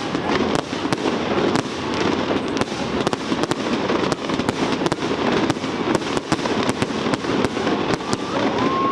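Fireworks display going off in a dense run: many sharp bangs and cracks a second over a continuous rumbling crackle.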